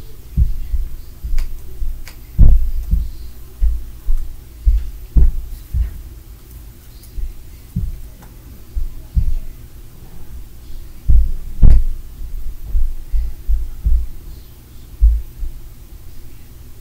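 Dull, low thuds at an uneven pace of one or two a second: heavy footsteps and stomping carried through the floor and walls from a neighbouring unit. Two thuds, about two and a half seconds in and again near twelve seconds, are much louder than the rest, and a low steady hum runs underneath.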